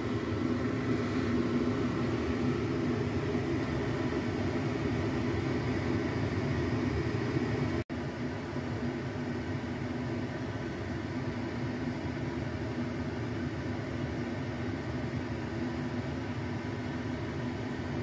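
Steady mechanical hum with faint steady tones, like a running fan or appliance motor; it cuts out for an instant about eight seconds in.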